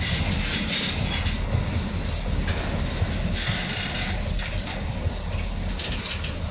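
Double-deck car-carrier freight wagons rolling slowly past at close range: a steady rumble of wheels on rail, with clicks as the wheels pass over the rail joints.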